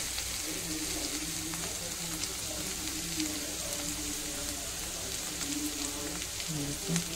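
Sliced onions and green chilies sizzling steadily in hot mustard oil in a wide pan on fairly high heat, with a few light scrapes of a steel spatula.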